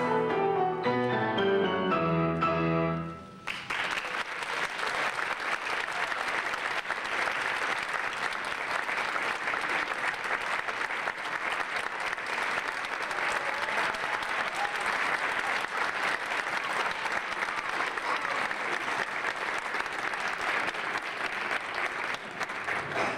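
A children's piano ensemble at a grand piano plays a falling closing run and a held final chord, which stops about three seconds in. Audience applause follows and goes on steadily through the bow.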